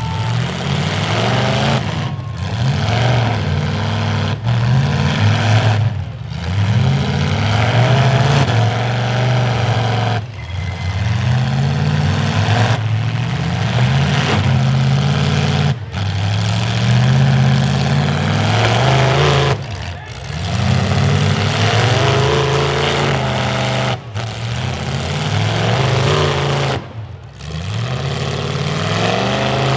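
Several demolition derby car engines running loud, their revs rising and falling again and again as the drivers accelerate and back up.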